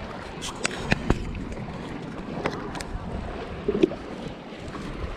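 Wind buffeting the microphone over the wash of water, with a scattering of sharp clicks and knocks of handling, the loudest about a second in and near four seconds.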